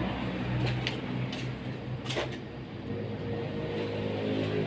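Steady low drone of passing road traffic, a heavy vehicle's engine, growing a little louder in the second half, with a few faint clicks.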